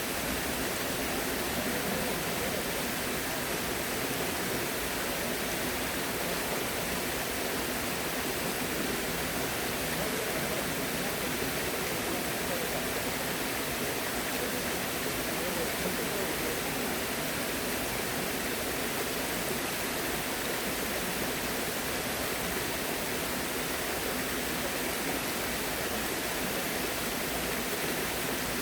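Flowing water rushing steadily, an even hiss with no breaks or changes.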